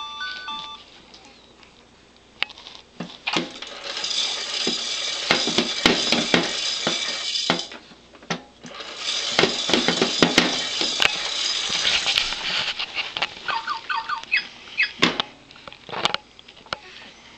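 Electronic sound effects from a baby's kick-activated plastic toy gym, set off by kicks on its foot panel: two stretches of jingling, rattling noise about three seconds each, with scattered clicks and a few short chirps near the end.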